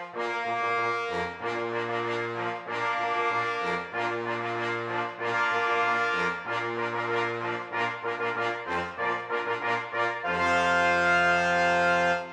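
Instrumental title music led by brass, with a low bass line under changing chords, ending on a long held chord that stops sharply near the end.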